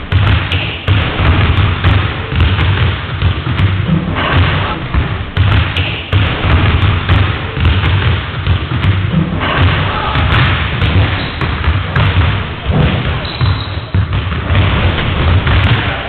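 Several basketballs bouncing and thudding on a wooden sports-hall floor, many short knocks overlapping.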